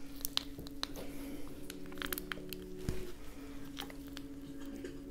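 Snow crab leg shells cracked and snapped apart by hand: a run of irregular sharp crunches and cracks, with faint steady low tones underneath.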